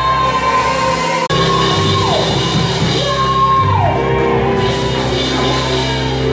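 Church worship music with steady keyboard and bass chords under a voice, or voices, holding long high shouts that each slide down at the end, about three times over. The sound drops out for an instant just over a second in.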